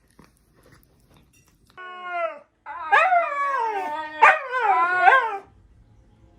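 A dog howling and whining, starting about two seconds in: first a short falling wail, then a longer run of wails that slide up and down in pitch.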